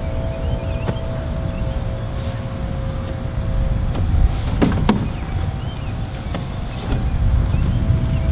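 Walk-behind greens mower engine idling with a steady low rumble and a faint steady whine, with a few short bird chirps above it.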